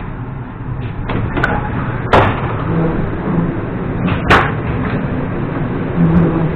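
Inter-car end doors of an EP2D electric train being pushed open and banging, two sharp bangs about two seconds apart, over the train's steady background rumble.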